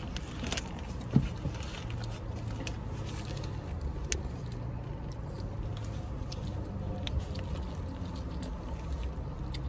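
Steady low background hum, with a few faint clicks and taps scattered through it, the sharpest about a second in.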